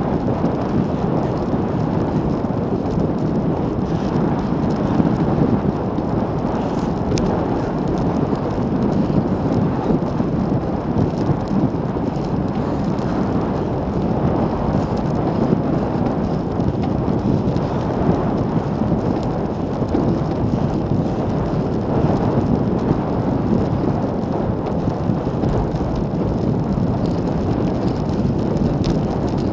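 Steady, loud wind rush buffeting the microphone of a bicycle-mounted action camera at about 40 km/h, mixed with the bike's tyre and road noise.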